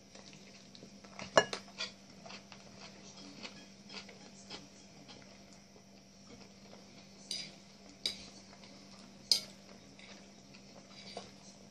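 Metal fork clinking and scraping against a plate, with a few sharp clinks, the loudest about a second and a half in and several more toward the end, and quieter chewing sounds between them.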